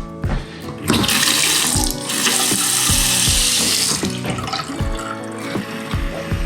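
Bathroom sink faucet turned on and running hard for about three seconds, then easing off, opened to test whether hot water reaches the upstairs taps. Background music with a steady beat plays underneath.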